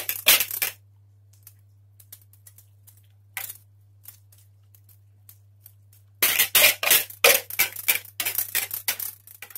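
Wire whisk scraping and knocking against the inside of a mixing bowl as a quiche filling is poured out: a few quick strokes at the start, scattered light taps, then a fast run of scraping strokes from about six seconds in. A faint steady low hum runs underneath.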